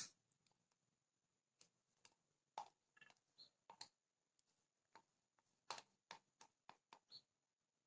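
Near silence with faint, scattered clicks and scrapes of a plastic spoon working plain yogurt out of a small plastic cup into a glass dish.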